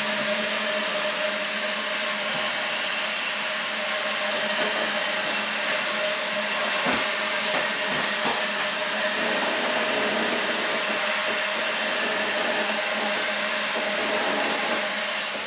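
Steady rushing hiss of water from a pull-out kitchen faucet sprayer hitting a wet paint roller cover and spinning it to rinse out the paint in a stainless steel sink.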